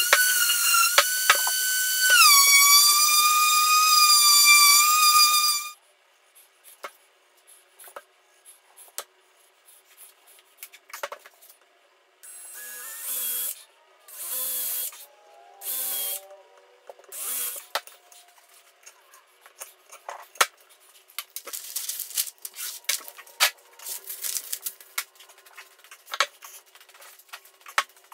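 Random orbital sander running with a steady whine that drops in pitch about two seconds in as it bears on the maple board, then cuts off around six seconds. After a pause, a cordless drill runs in four short bursts as it drills into the end-grain maple board, followed by scattered clicks and knocks of handling.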